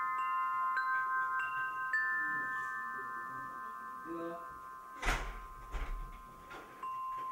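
Soundtrack of chime-like ringing notes that sustain and overlap as they slowly fade, three new notes entering in the first two seconds. About five seconds in comes a brief noisy rush with a low rumble and a few clicks, then one more note rings out near the end.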